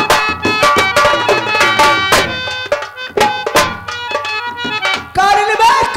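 Folk band accompaniment playing an instrumental passage: rapid drum strokes over held melody notes, thinning out midway. About five seconds in, a high voice comes in with a long held, wavering sung note.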